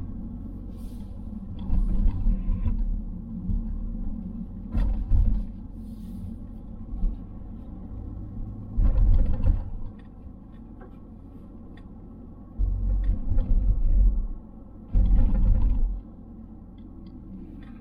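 Ford Focus ST Mk4 running on the road, its Mountune M330-mapped 2.3-litre EcoBoost engine and the tyre and road noise heard from inside the cabin as a steady low drone. Louder low rumbles swell and fade every few seconds.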